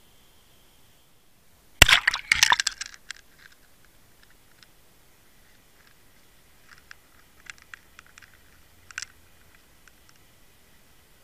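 Underwater recording: a quick cluster of sharp clicks and crackles about two seconds in, then a few scattered faint clicks.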